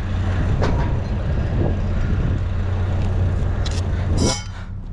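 Pickup truck engine idling with a steady low hum, with a few light knocks and a louder clunk near the end, after which it sounds quieter.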